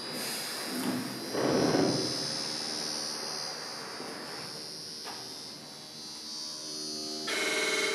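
Electronic drone from an experimental sound performance: steady humming and buzzing tones under a high whine. It swells louder about a second and a half in, and near the end a denser, louder layer of buzzing tones cuts in suddenly.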